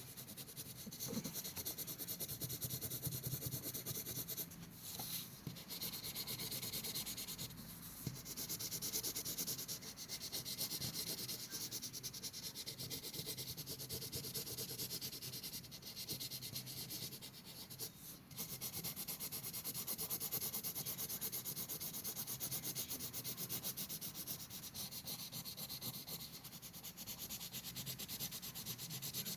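Coloured pencil shading on paper: rapid back-and-forth scratchy strokes, continuous with a few brief pauses.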